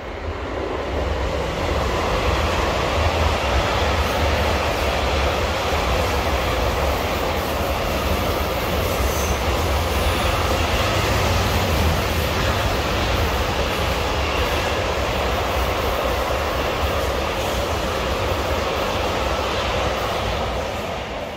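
Freight train of loaded timber wagons rolling across a concrete rail bridge: a steady rumble of wheels on rail. It builds over the first couple of seconds, holds level, and eases slightly near the end.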